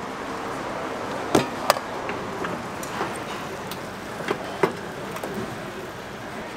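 Street-food stall ambience: a steady background noise with a few sharp knocks or clacks, the loudest two close together early on, then single ones and a pair later.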